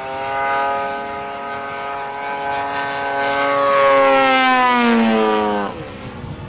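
Engine and propeller of a large radio-controlled aerobatic plane running at high power in a low pass. It grows louder to a peak about four seconds in, drops slightly in pitch as it goes by, and cuts off suddenly near the end.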